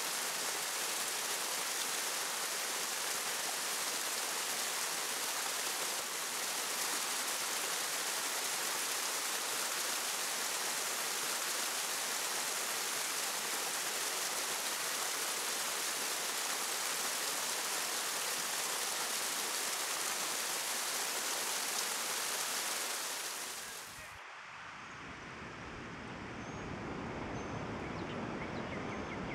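Water rushing over a low dam spillway and down a stone fish ladder: a steady hiss. About 24 seconds in it gives way to a lower, gusty rumble of wind on the microphone.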